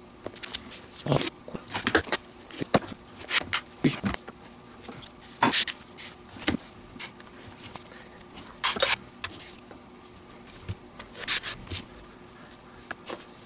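Handling noise of leather lace being threaded and pulled through a leather baseball glove: irregular short rubs, squeaks and rustles, with a few louder pulls.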